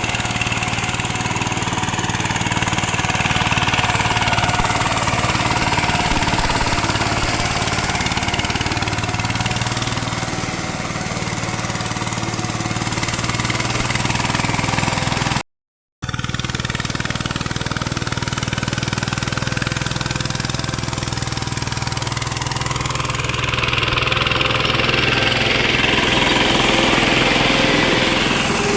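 VST power tiller engine running steadily under way. The sound cuts out completely for about half a second around the middle, then resumes, growing a little louder near the end.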